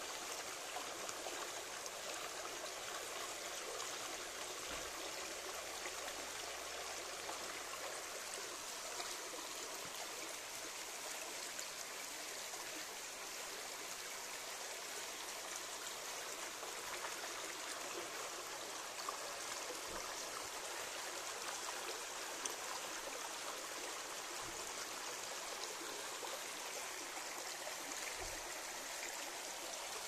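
Shallow stream flowing and rippling over rocks, a steady even rush of water.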